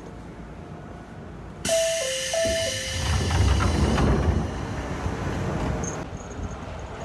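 Train passenger doors opening with a sudden hiss of air, while a two-note falling door chime sounds twice. A low rumble follows as the passenger steps out onto the platform.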